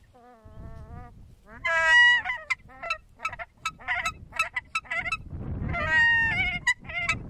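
Nene (Hawaiian geese) calling: a soft call at the start, a loud call about two seconds in, then a quick run of short calls and longer calls near the end.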